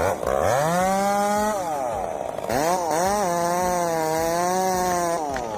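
Chainsaw engine revved twice. It climbs to full speed for about half a second and drops back, then revs again and holds steady for about two seconds before falling off near the end.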